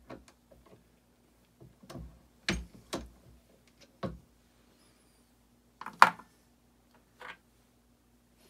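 Scattered clicks and knocks of hand-loading rifle cartridges: reloading tools and cartridges being handled and set down, about seven separate knocks, the loudest about six seconds in.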